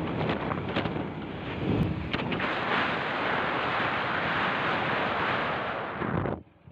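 Wind rushing and buffeting the microphone on a moving motorcycle, with the engine running faintly underneath. The sound cuts out abruptly near the end.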